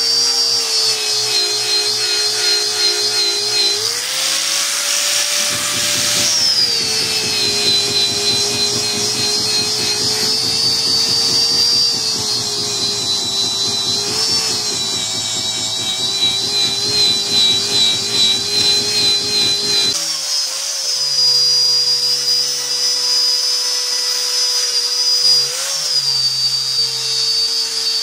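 Small high-speed power tool whining as it grinds the steel machete blade. The pitch rises briefly, then sags when the tool bears on the work, with a fast rasping through the middle stretch; it runs lighter again near the end.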